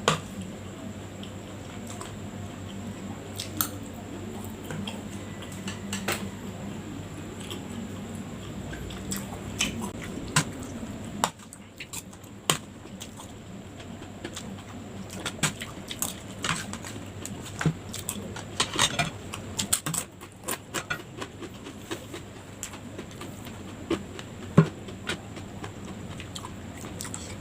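A person chewing a mouthful of fried rice at close range, with wet mouth sounds and many short, scattered clicks.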